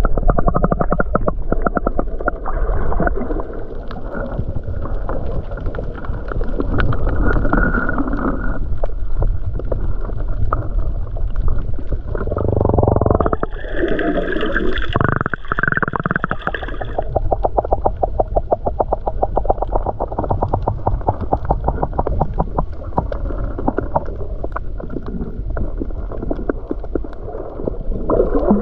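Muffled underwater sound picked up by a camera held below the surface while snorkelling: water moving around the microphone with a dense, fine crackle. About 13 seconds in, a brighter, louder stretch of a few seconds.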